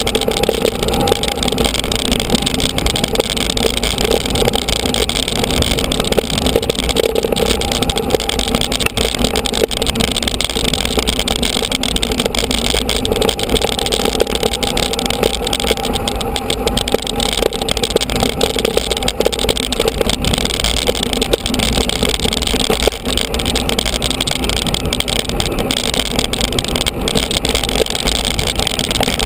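Steady rush of wind and riding noise on a mountain bike's action camera as the bike rolls along a dirt track, with a strong low rumble and faint scattered clicks from the bike over the ground.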